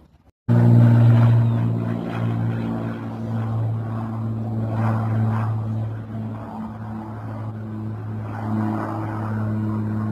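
An engine running steadily: a low, even drone that cuts in abruptly about half a second in.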